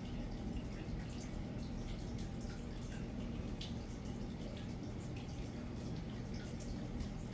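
Aquarium water trickling, with many small drips and bubble pops over a steady low hum from the tank's equipment.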